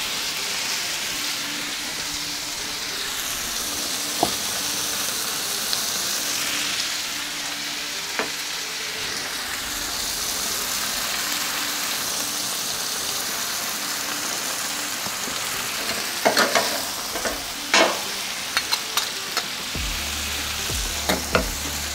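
Sliced rib-eye steak, onions and buttered baguette halves sizzling steadily on a hot flat-top griddle. A metal spatula gives a few sharp clicks against the griddle near the end.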